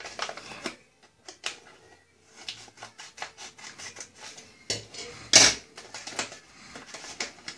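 Plastic cable packaging being cut open and handled: a run of small clicks and crinkles, with a louder rustle about five seconds in.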